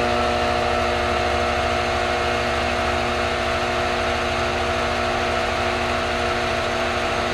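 Hardinge HLV-H toolroom lathe running at a steady speed, its spindle drive giving a steady, even whine of several pitches over a low hum.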